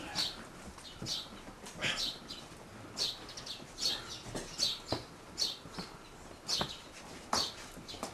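Footsteps of several people walking and climbing steps, a scuff or tap about once a second.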